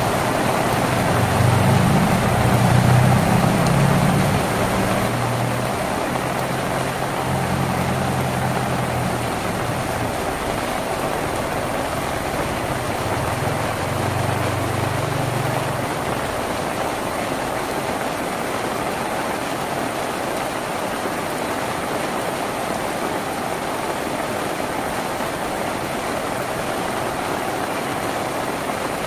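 Steady rain falling on a tin roof. Under it, a low engine-like hum, loudest in the first few seconds, fades out about halfway through.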